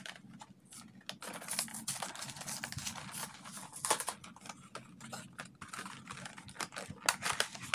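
A Pokémon Hidden Fates pin collection box, cardboard with a clear plastic window, being struggled open by hand: a run of sharp clicks, crackles and rustles of plastic and cardboard.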